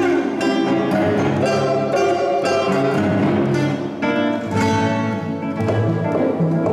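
Classical guitar and string orchestra playing together, the guitar's sharp plucked chords standing out over the sustained strings.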